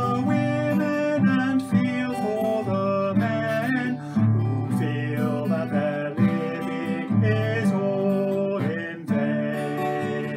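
A man singing a verse of a hymn to a strummed guitar accompaniment.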